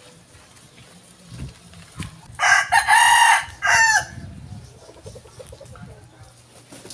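A rooster crows once, loud, for about a second and a half beginning about two and a half seconds in.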